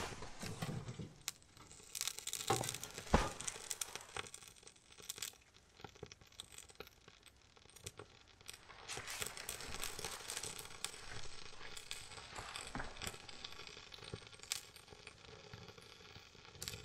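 Tinder and split kindling in a small steel hot-tent wood stove being lit and catching: irregular crackling and snapping with sharp clicks, denser as the flames take hold about halfway through.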